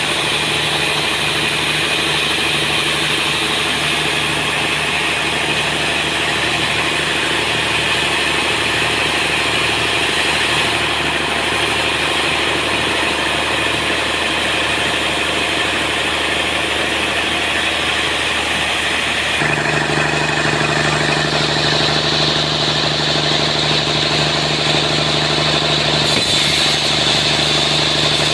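Sawmill running steadily while sawing a large trembesi (rain tree) log: a constant machine hum with a hiss of cutting over it. The hum shifts and grows fuller about two-thirds of the way through.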